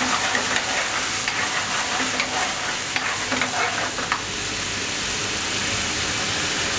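Food frying and sizzling in a hot pan, with a utensil stirring and clacking against the pan for the first four seconds or so; after that the sizzling goes on steadily.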